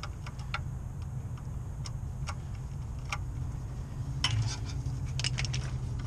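Irregular small clicks and light rattles of wires and connectors being handled and pushed aside at a compressor's wiring, more of them in the second half, over a steady low hum.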